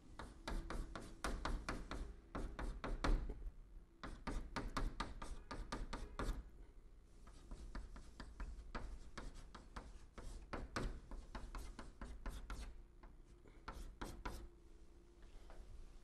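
Chalk writing on a chalkboard: quick runs of sharp taps and scrapes as characters are written, with short pauses between strokes. The strokes come thickest in the first six seconds, then more sparsely.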